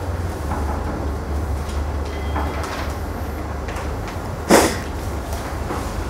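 Low steady hum with room noise, and one sharp knock about four and a half seconds in, with a few fainter knocks around it.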